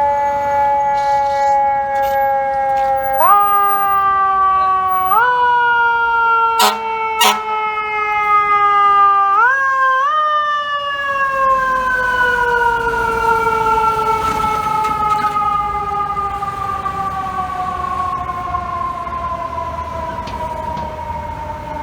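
Fire truck's mechanical siren winding down in a slowly falling wail, pushed back up in pitch four times in the first half, then falling in one long, steady glide to the end. Two short, sharp sounds cut in about seven seconds in.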